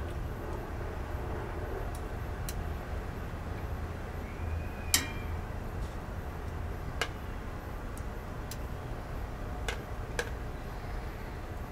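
Sparse, light clicks and taps, about one every second or two, the sharpest about five seconds in and just after a brief squeak, over a steady low hum.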